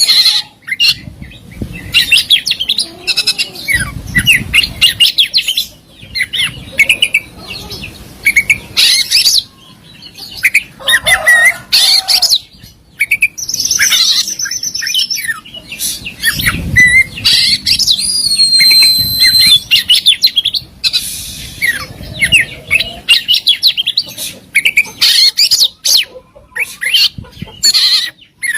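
Oriental magpie-robin singing a long, varied song. Rapid chattering phrases and mimicked calls come in short bursts with brief pauses, mixed with a few clear held whistles.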